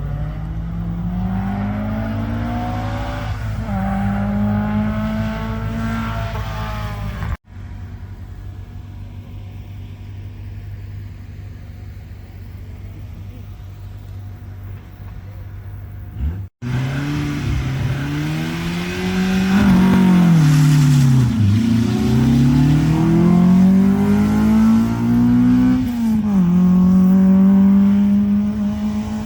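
Historic rally car engines at a stage start, in three clips joined by cuts. One engine climbs and then holds its revs. A lower steady engine note follows. Near the end another engine blips its throttle up and down several times before holding high revs.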